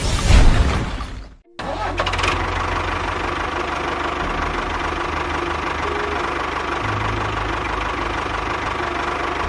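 An engine runs steadily with a low, rapid knocking pulse. A short loud burst comes first, cut off sharply about a second and a half in.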